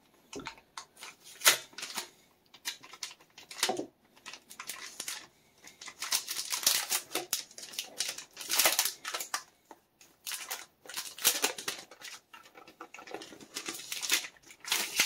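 Clear plastic protective film crinkling and rustling as it is peeled and slid off a new laptop, in irregular crackles that get busier in the second half.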